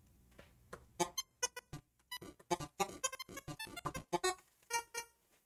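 Chiptune-style synthesized beeps from the Sound Keyboard app, one short pitched blip for each keystroke as a sentence is typed on a laptop keyboard. They come in a quick, uneven run of about five a second and stop shortly before the end.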